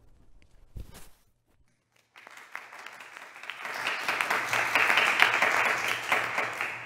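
Applause of hand clapping that starts about two seconds in, swells to its loudest in the middle and fades near the end. A short soft knock comes just before the first second.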